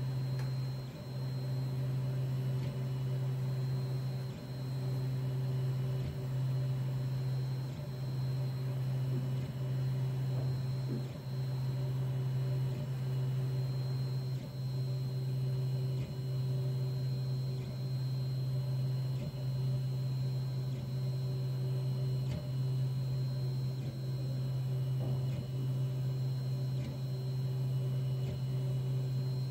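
3D4040N 3D printer running: a steady low hum with brief breaks and ticks every second or two as its moves change.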